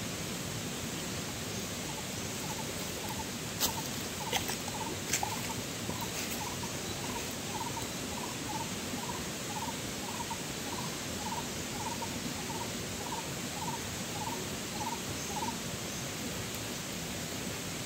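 An animal calling: a long run of short, slightly rising notes, between two and three a second, that starts about three seconds in and stops a couple of seconds before the end, over a steady rushing hiss. A few sharp clicks fall near the start of the calls.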